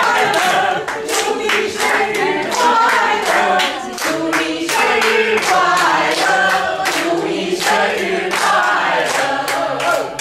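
A group of men and women singing together, clapping along.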